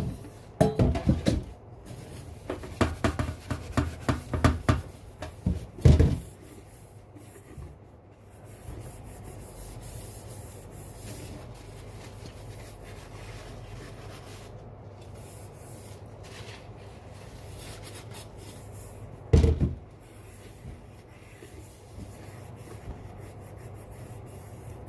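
A sponge with cleaning paste scrubbing a kettle, with a quick run of rubbing strokes for the first five seconds. A knock comes about six seconds in, then a long quieter stretch, and another knock near the end.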